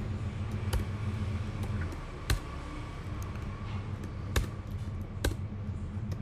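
A few scattered computer keyboard keystrokes, single sharp clicks spaced a second or more apart, over a steady low hum.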